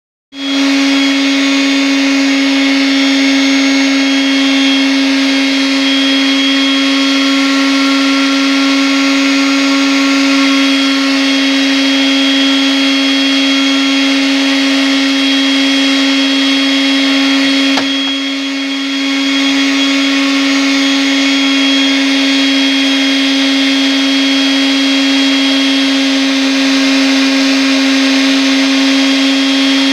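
Electric power sander running steadily at high speed, a constant whine over a gritty hiss, with a brief dip in speed and level a little past halfway.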